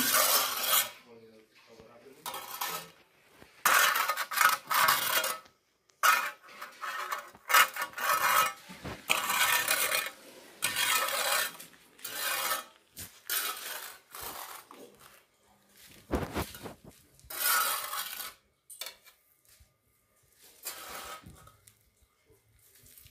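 A small metal scoop scraping sand and grit across a concrete floor in repeated, irregular strokes.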